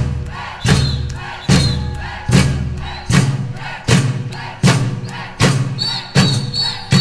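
Brazilian surdo bass drums beating a slow, steady pulse: a deep stroke about every 0.8 seconds, nine in all, each ringing out before the next.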